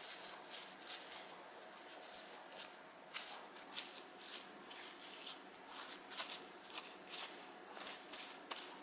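A spoon spreading sticky chili seasoning paste over stacked perilla leaves, making a faint run of soft, irregular wet clicks and smacks, several a second.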